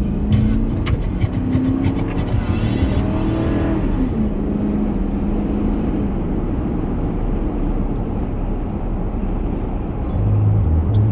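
Car engine accelerating, its pitch rising over the first few seconds and then holding steady under road noise.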